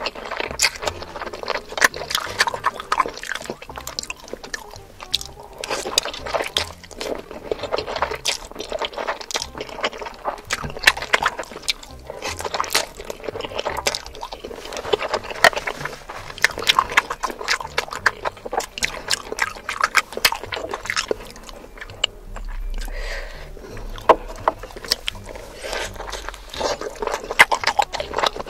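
Close-miked eating sounds: wet slurping and chewing of noodles and dumplings, with a steady run of quick mouth smacks and clicks.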